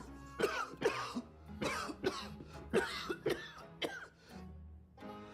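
A man coughing in a long fit: a rapid run of short, harsh coughs, about two a second, with faint music underneath.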